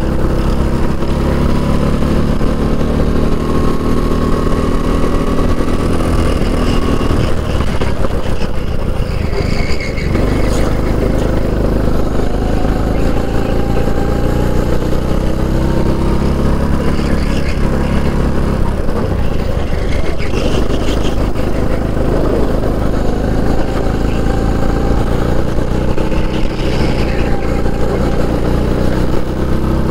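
Onboard racing kart engine at full throttle, its pitch climbing along the straights and falling off into the corners, then rising again, three times, over wind and tyre noise. The driver complains the kart loses a lot on the straights and is down on speed.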